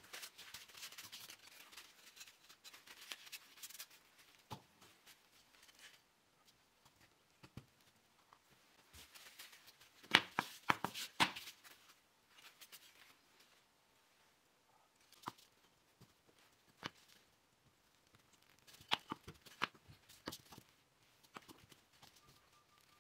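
Paper towel rustling and rubbing over wooden joints as they are wiped, then a quick cluster of sharp wooden clicks and knocks about ten seconds in as the glued frame and sticks are handled and set down, with a few single taps after.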